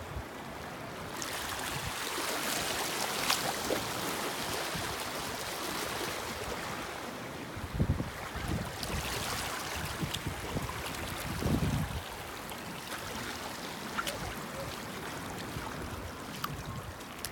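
Sea waves washing onto the shore, the wash swelling about a second in and easing in the second half. A few low buffets of wind hit the microphone.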